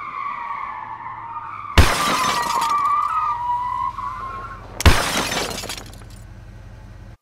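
Cinewhoop FPV drone's motors and propellers whining, the pitch dipping and rising with the throttle, heard from the onboard camera. The drone hits the ground hard about two seconds in, with a couple of seconds of rough scraping noise after, then hits again about five seconds in. Near the end the whine fades to a low hum.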